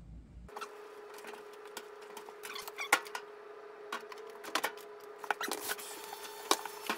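Laundry being loaded by hand into a top-loading washing machine: clothes handled and dropped into the drum, with a scattered series of light knocks and clicks against the machine over a faint steady hum.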